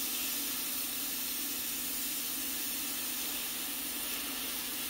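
Hot air rework station blowing a steady hiss of hot air onto a circuit board, melting the solder on a micro switch to desolder it, with a low steady hum underneath.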